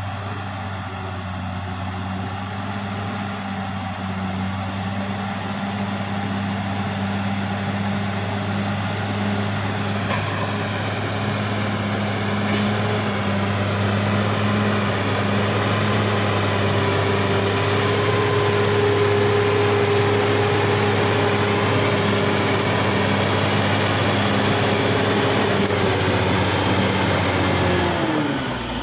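Caterpillar D6R XL bulldozer's diesel engine running steadily and getting gradually louder, with a higher whine joining in about halfway. Near the end the engine note dips briefly and climbs back.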